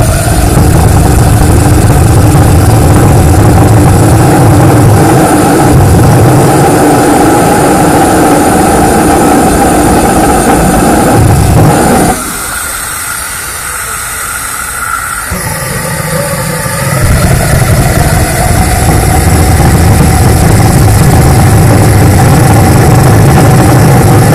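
Small demonstration ramjet engine running on a test stand: a loud, steady roar. About halfway through it drops abruptly to a lower level for a few seconds, then builds back up to full power.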